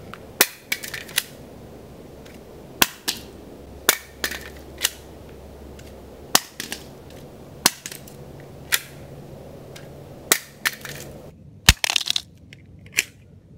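ETS polymer Glock pistol magazines dropped from arm's height onto hard ground in a drop test. Each one lands with a sharp clack, often followed by a smaller bounce, one drop every second or two.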